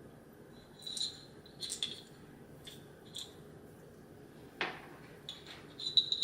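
Light clicks and clinks of a portable electric coffee grinder's parts being handled and taken apart by hand. Single clicks are spaced about a second apart, with one fuller knock and a quick cluster of clicks near the end.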